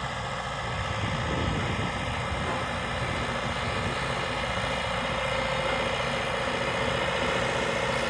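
Single-drum road roller's diesel engine running steadily as the roller drives slowly over gravel, growing a little louder as it comes closer, with a steady hum strengthening in the second half.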